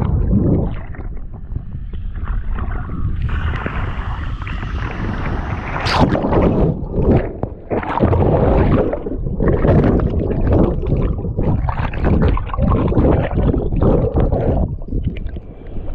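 Water churning and gurgling around a swimmer who has just jumped in, then splashing swimming strokes about once a second from about six seconds in, over a steady low rumble of falling water.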